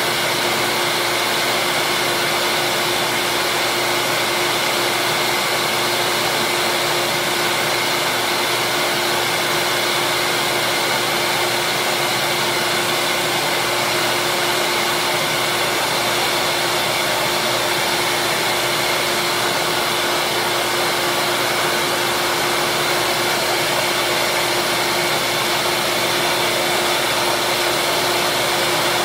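Small benchtop disc sander running steadily: a constant motor tone over a loud, even hiss, while small plastic slider pieces are shaped against the spinning disc.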